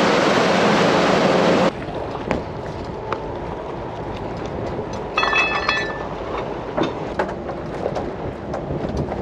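A boat's engine running underway with rushing wind and water, which cuts off abruptly under two seconds in. Quieter wind and water noise follow on the stopped boat, with scattered knocks on the deck and a brief metallic rattle about five seconds in.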